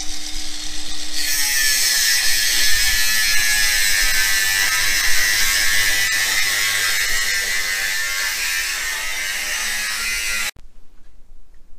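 Angle grinder with a cutting disc cutting into steel box section: the motor whines steadily at first, then about a second in the disc bites into the steel with a loud grinding hiss that holds steady and stops abruptly near the end.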